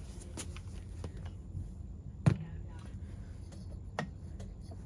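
Two sharp clicks over a low steady hum, the louder a little over two seconds in and a fainter one about four seconds in, with a few light ticks: tools and chainsaw parts being handled while a piston stop is fitted in the spark plug hole.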